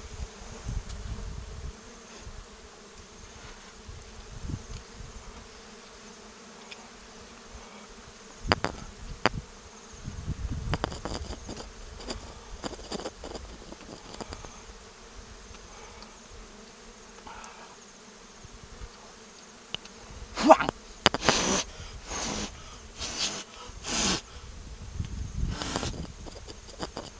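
Honeybees buzzing in a steady hum around a comb swarming with bees, held in the hand. Short rustling and knocking noises break in here and there, and a run of loud ones comes near the end.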